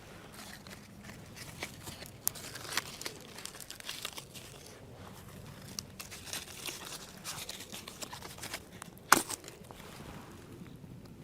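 Freshly lit birch bark and kindling crackling as a small campfire catches, with irregular small pops and one much louder sharp crack about nine seconds in.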